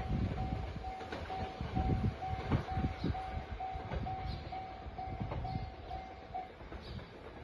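Railway level-crossing warning bell ringing in an even beat, about two dings a second, stopping about six seconds in. Under it, the rumble and wheel knocks of a JR Shikoku 8000 series limited express electric train fade as it runs away down the track.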